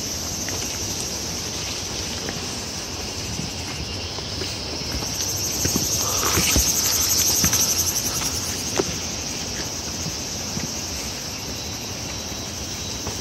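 A steady, high-pitched insect chorus that swells louder for a few seconds midway and then settles back. Under it are footsteps and the rustle of plants as someone walks through undergrowth.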